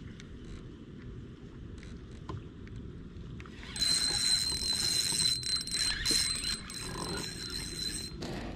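Fishing reel whirring with a steady high whine over a hiss while a hooked bass is fought, starting suddenly a few seconds in and cutting off sharply near the end. Before it, only a faint low rumble and small clicks of the rod and kayak.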